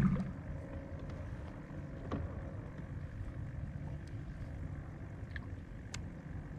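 Faint steady low rumble of open-water ambience around a small fishing boat, with a few light ticks scattered through it.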